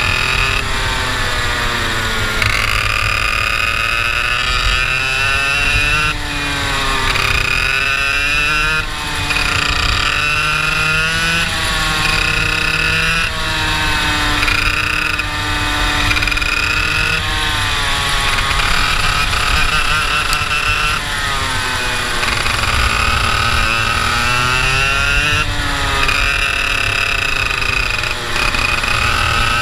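IAME two-stroke kart engine at full racing revs, heard onboard a Tonykart lapping a track. Its pitch climbs for a few seconds and then drops sharply, again and again, as the kart accelerates down each straight and lifts for the next corner.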